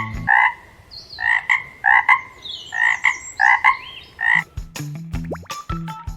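Frog croaking in a quick series of short, repeated calls for about four and a half seconds, then stopping. Short musical notes and ticks follow near the end.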